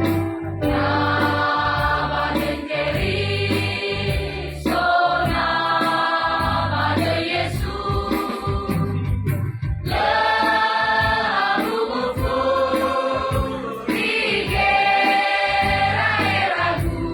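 Choir singing in held chords, phrase after phrase with short breaks between them.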